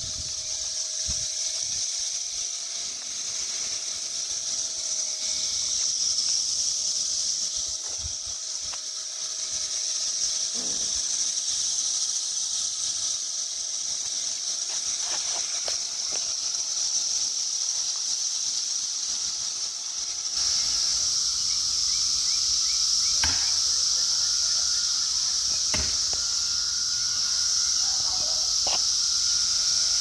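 Brood X periodical cicadas (17-year Magicicada) chorusing: a steady, shrill, high-pitched drone that swells louder about two-thirds of the way in.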